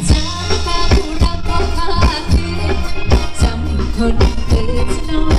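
Thai ramwong dance music from a live band played over loudspeakers, with a steady drum beat, bass and melody.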